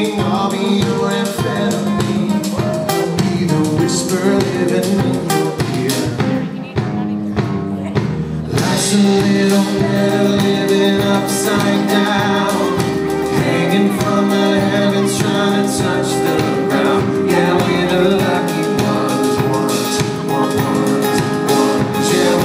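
Live band performance of a pop-rock song with a male lead vocal. The music thins out briefly about seven seconds in, then comes back fuller.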